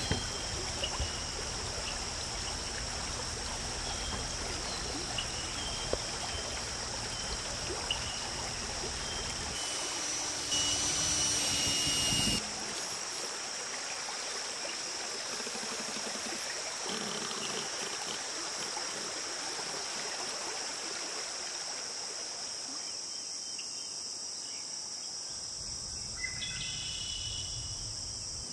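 Steady high-pitched buzz of insects over a hiss of outdoor background noise, with a few faint clicks. About ten seconds in, a DeWalt 20V MAX cordless drill runs for about two seconds, driving a screw into a stair stringer.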